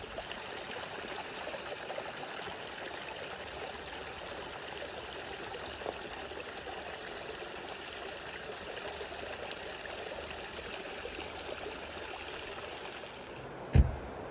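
Small mountain creek trickling and splashing in little cascades over mossy rocks, a steady wash of water. Near the end, a brief loud low thump.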